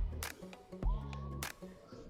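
Background music with a steady beat: held bass notes, a gliding synth tone and a drum hit a little over once a second.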